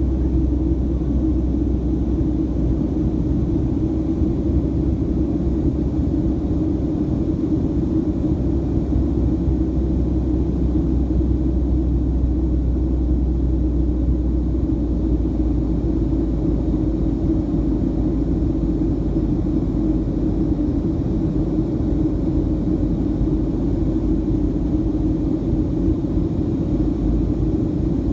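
Steady low rumble of a Boeing 737-700's CFM56-7B jet engines and the rushing air, heard inside the passenger cabin in flight.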